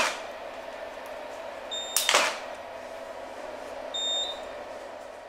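Hair-cutting scissors cutting wet hair: two sharp snips about two seconds apart. Brief high metallic rings from the blades come just before the second snip and again near the end.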